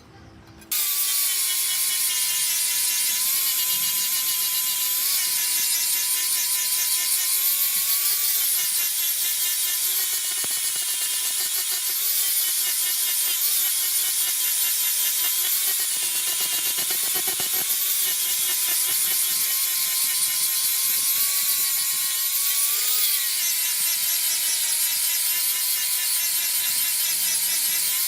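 Electric power tool, its motor running steadily with a high whine over a dense hiss, starting abruptly under a second in; the pitch dips slightly now and then as it bears on the work.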